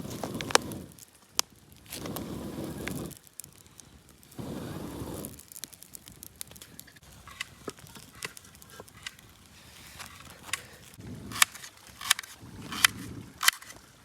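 Dry sticks and twigs handled and broken for firewood: sharp cracks and snaps scattered among short spells of rustling.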